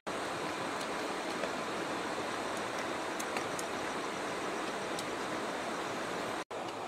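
Steady rushing noise, with a few faint ticks; it drops out for an instant near the end.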